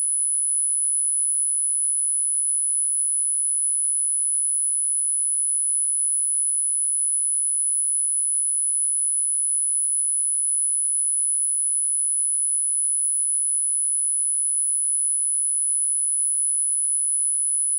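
A single very high-pitched pure sine tone from a subliminal frequency track, held at a steady pitch and level throughout.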